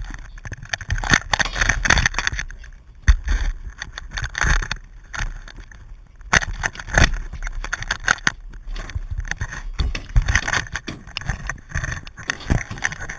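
Close handling noise from fishing gear: irregular knocks, scrapes and light metal clinks as a wire leader and snap swivels are worked by hand, with clothing brushing against the camera.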